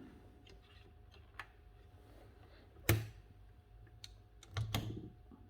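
Carriage of an early Erika folding typewriter being moved to its starting position: a few scattered mechanical clicks and knocks, the sharpest about three seconds in, and a short cluster of clicks near the end.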